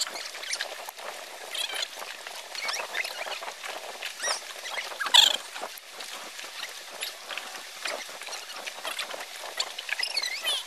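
Many short high-pitched chirps and squeaks, coming irregularly, with one louder squeak about five seconds in.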